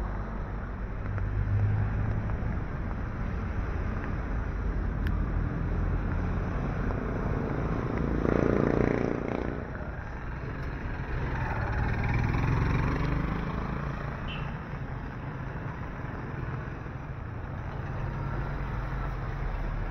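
Street traffic ambience on a rain-wet road: vehicles passing with a steady engine hum. One passes loudly about eight seconds in and another swells up a few seconds later.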